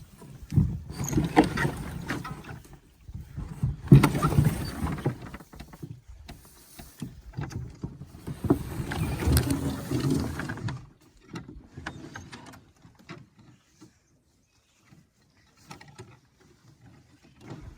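Canoe paddling: three loud rushes of paddle strokes and water in the first eleven seconds, then quieter with small knocks and drips.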